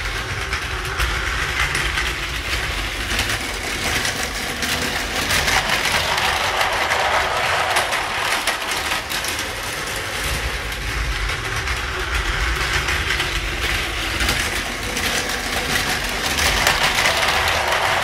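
Battery-powered toy JR commuter train running along its plastic track, a steady whir with a rapid clatter of clicks, growing louder about five seconds in and again near the end as the train passes close by.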